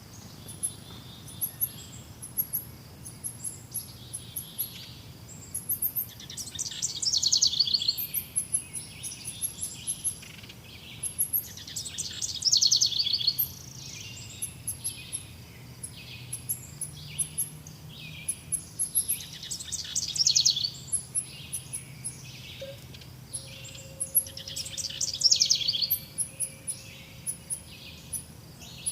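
Forest birds singing. One bird repeats a loud, rapid song phrase about every five or six seconds, four times in all, while short, very high chirps go on throughout.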